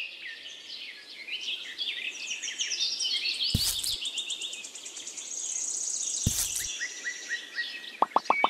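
Birds chirping and trilling, many short calls overlapping. Two sharp clicks come about three and a half and six seconds in, and near the end a rapid run of short pulses, about eight a second, starts.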